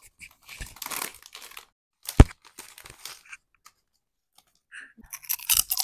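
A chip bag rustling and crinkling as hands reach in and pull chips out. There is one sharp knock about two seconds in, and louder crinkling near the end.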